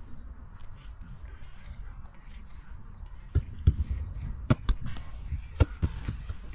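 A low outdoor rumble with faint bird chirps. From about halfway, a run of sharp knocks comes at irregular intervals, about eight in three seconds; these are the loudest sounds.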